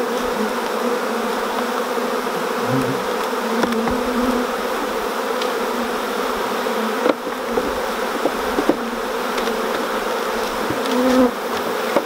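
Honeybees buzzing around an opened hive and nuc box full of bees, a steady low hum. A few short sharp knocks partway through.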